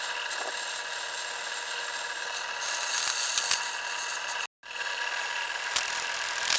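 A power tool working on steel, running steadily with a whine and a high hiss. It cuts out abruptly for a moment about four and a half seconds in, then picks up again.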